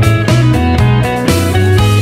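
Background music: a guitar-led track with bright plucked notes over a steady bass pulse.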